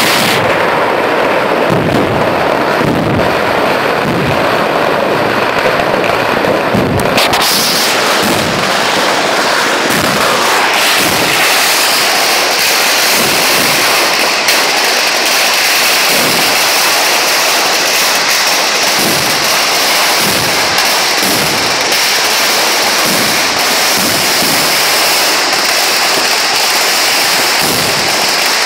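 Kerala temple-festival fireworks (vedikettu) going off in a dense barrage. The crackers and shells burst so close together that they merge into one continuous loud din, with no pause.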